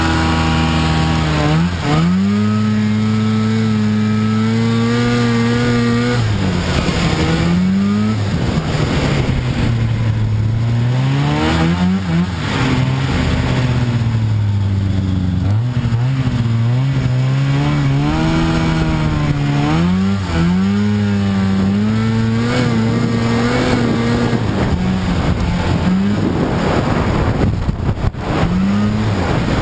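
Snowmobile engine heard from the rider's seat, revving up and easing off again several times as it is ridden through snow.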